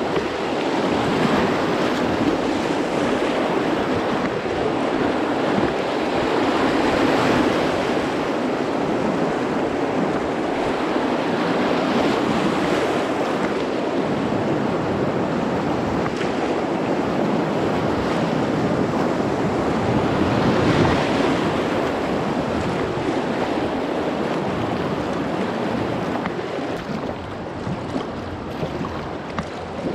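Whitewater of river rapids rushing and splashing steadily, swelling louder twice along the way.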